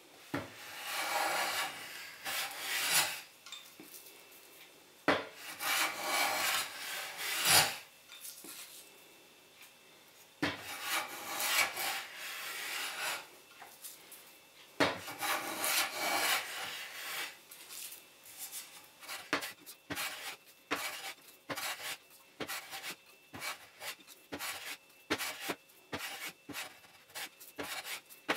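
Hand-held metal smoothing plane shaving along the wood of a mitred frame. It makes a scraping hiss on each pass. The first strokes are long, about two to three seconds each with pauses between them, and from about halfway through they become a run of short, quick strokes.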